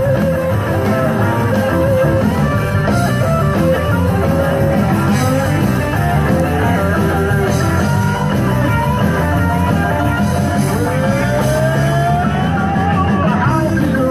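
Rock music with guitar playing steadily, with a note sliding upward about eleven seconds in.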